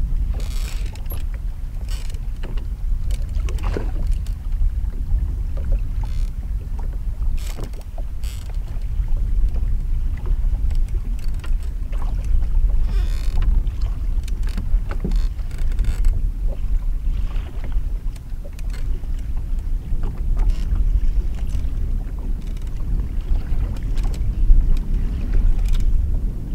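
Wind rumbling on the microphone over small waves slapping a boat's hull, with scattered short knocks.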